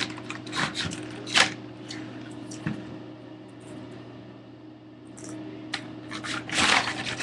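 Handling noise from a toy doll moved about close to the webcam microphone: scattered rustles and light knocks, with a louder scraping rustle near the end.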